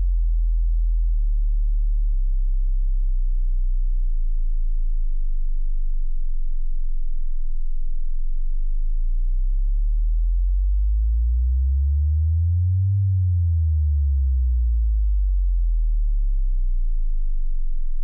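A deep, electronic sine-like bass tone sounding steadily; from about halfway through a second low tone slowly glides up in pitch, then glides back down near the end.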